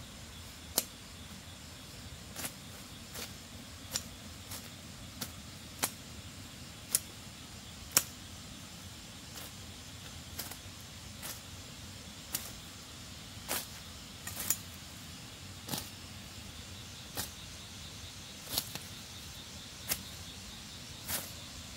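Irregular sharp knocks, roughly one a second, over a steady faint hiss.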